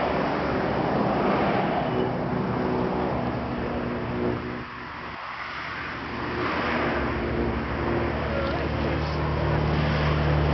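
A vehicle engine running with a steady low hum that grows stronger about seven seconds in, over a rushing noise of wind.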